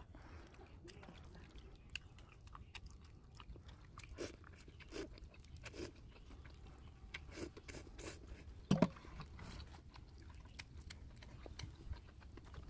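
Eating instant noodle soup: quiet slurping and chewing, with scattered light clicks of a metal spoon and chopsticks against a stainless steel bowl, and one louder short mouth sound about nine seconds in.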